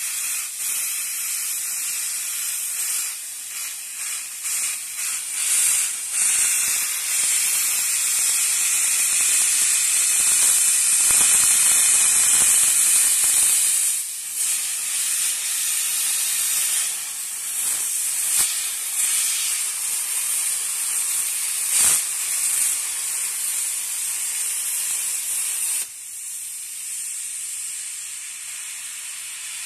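An LVD-CNC plasma cutting machine's torch hisses steadily as its arc cuts through steel plate. The hiss drops off suddenly near the end as the cut finishes, leaving a softer hiss.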